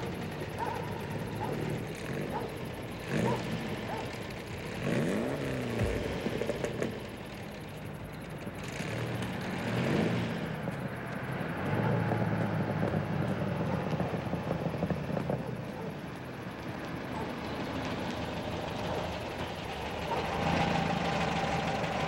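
A vehicle engine running with a steady hum, louder near the end.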